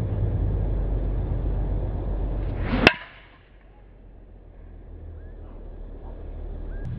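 A golf driver swung with a rising whoosh and striking the ball off the tee with one sharp crack about three seconds in. A steady low rumble underneath drops away right after the hit.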